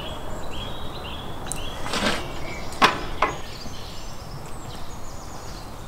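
Outdoor ambience with birds chirping in short repeated calls over a steady background hiss; about three seconds in come two sharp knocks, the first the loudest sound, just after a brief rustle.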